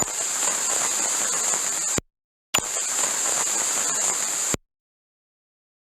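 Radio interference static: two bursts of harsh hiss, each about two seconds long, switched on and off abruptly with a short gap between them, brightest in a high sizzling band.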